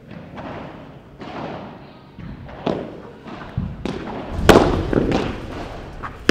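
Padel rally: the ball struck by rackets and bouncing on the court and walls, a series of sharp pops and thuds with an echo after each. The loudest hit comes about four and a half seconds in.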